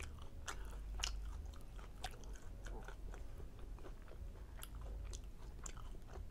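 A person chewing chicken fajitas in a tortilla, with scattered short mouth clicks and smacks throughout.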